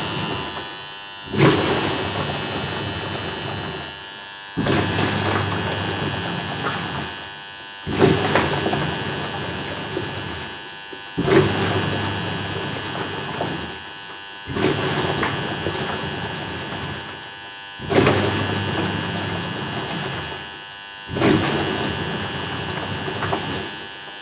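Washing machine running with a grinding noise: the drum and motor surge in abruptly about every three seconds, each surge fading slowly before a brief dip. A steady high whine runs over the top.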